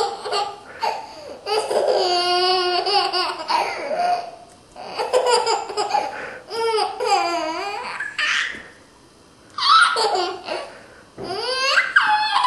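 A 13-month-old baby laughing hard in about five bouts of pulsing giggles, with short pauses between them.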